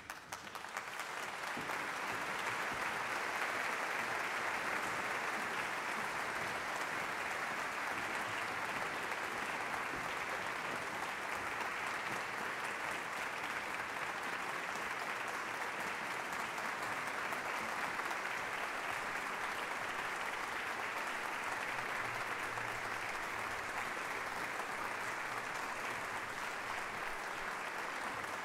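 Audience applauding in a concert hall, swelling up over the first couple of seconds and then holding steady: the welcome for an orchestra walking on stage.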